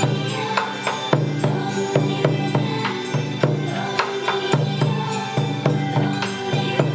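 A bon odori dance song playing, with a large taiko drum beaten along to it with wooden sticks: sharp strokes about twice a second over the held notes of the song.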